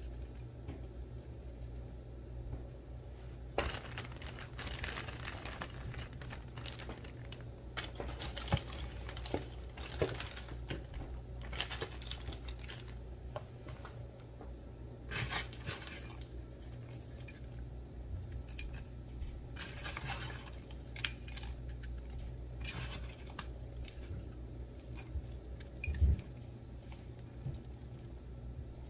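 Hands scooping and shifting crushed ice in a metal bowl: bursts of crunching, crackling ice with small clinks against the bowl, and a sharper knock near the end.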